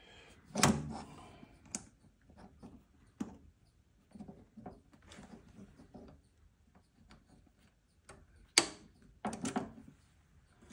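Small steel parts clicking and knocking as the yoke of a lathe belt tensioner is fitted onto its idler arm by hand. The two sharpest knocks come about two-thirds of a second in and again near the end.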